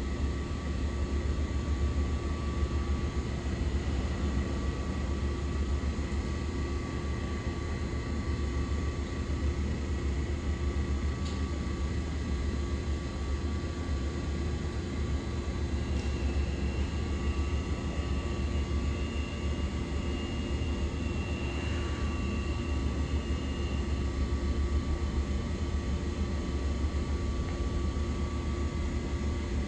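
Steady low rumble and hum of a subway station, with faint constant whining tones throughout and a higher whine coming in for several seconds midway.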